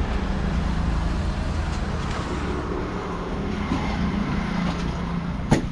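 An engine running steadily, with one sharp knock near the end.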